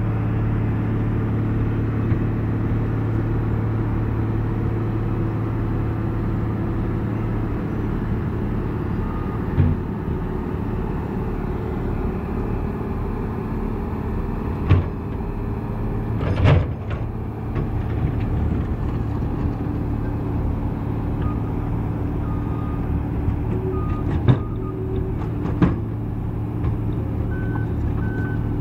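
Wirtgen 2 m cold milling machine running steadily while milling deep into road pavement, with a few sharp knocks scattered through. Short, evenly repeated reversing beeps start past the middle and continue to the end.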